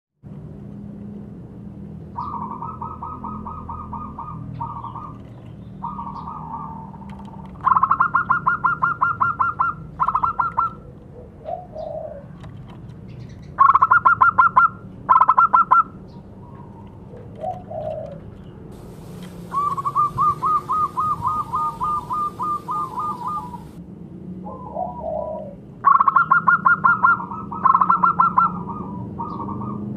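Zebra dove (perkutut) singing: repeated bouts of rapid staccato coos strung into a quick trill at a steady pitch, several bursts with short pauses between them.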